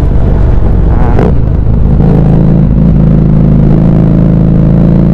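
Harley-Davidson Street 750's liquid-cooled V-twin running loud through an aftermarket, non-stock exhaust while the bike is ridden, holding a mostly steady note. There is a short rise in pitch about a second in.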